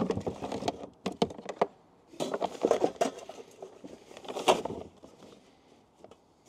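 Handling noises as an induction cooktop is set into a plastic storage box and a cook set in a cloth bag is pushed in after it: scattered knocks, clatter and scraping, the loudest knock about four and a half seconds in, quieter near the end.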